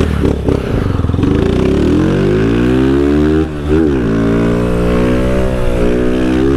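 Honda CG 160 Fan single-cylinder four-stroke engine through a Dore aftermarket exhaust, accelerating hard: the revs climb, and about three and a half seconds in the throttle closes briefly for an upshift, then the revs climb again in the next gear.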